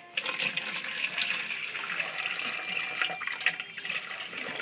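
Kitchen faucet running water into a stainless-steel sink. The flow starts abruptly just after the start and splashes steadily, easing off near the end.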